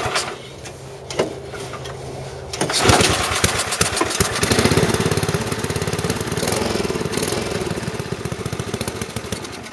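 Rebuilt wood chipper's small gasoline engine being pull-started: about three seconds in it catches and runs with a fast, even firing beat, its throttle stuck half open, and it drops away near the end.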